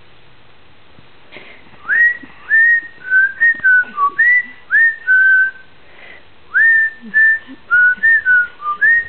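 A person whistling a short melody to a baby, clear notes that each scoop up into a held pitch. The whistling starts about two seconds in and comes in two phrases with a brief pause between them.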